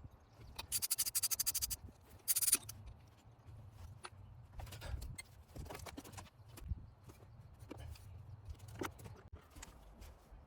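Ratchet wrench clicking rapidly for about a second, then a shorter burst of clicks, followed by scattered light clinks and knocks of hand tools on metal engine parts.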